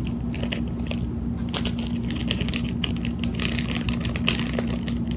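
Plastic packaging crinkling and crackling in irregular clusters as a squishy toy is worked out of it.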